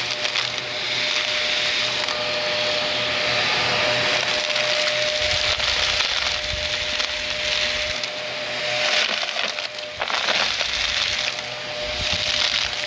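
Vacuum cleaner running with a steady motor whine, crackling as it sucks up crunchy debris.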